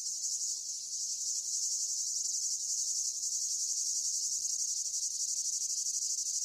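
Steady chorus of chirping insects, a dense high-pitched trill like crickets, with faint wavering tones lower down.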